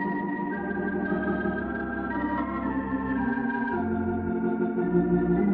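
Organ playing the slow introduction to a gospel song: sustained chords over a low bass line, the chords changing every second or so.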